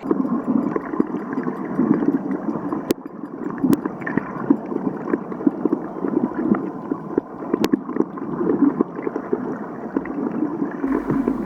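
Water sloshing and gurgling around a swimmer's camera, continuous and irregular, dull with little treble, with a few sharp clicks.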